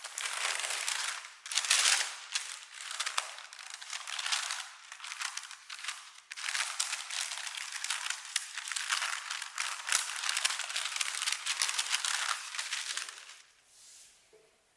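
Crinkly wrapping material being handled, crinkling and rustling with many small crackles, with short dips, stopping about a second before the end.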